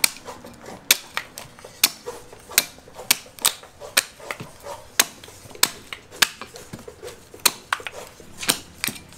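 A knife chopping and shaving at a coconut's husk and shell: sharp, irregular strikes, about two a second.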